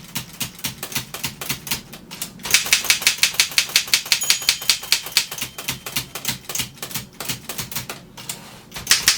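1936 Seidel & Naumann Ideal office typewriter typing: a quick, even run of typebar strikes on the platen, about six or seven a second, growing louder a couple of seconds in and easing off near the end.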